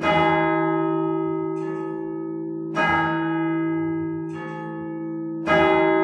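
St Paul's Cathedral clock bells striking, heard close up from inside the bell tower: a heavy stroke about every two and a half to three seconds, each led by a lighter stroke about a second before, with a long hum ringing on between them.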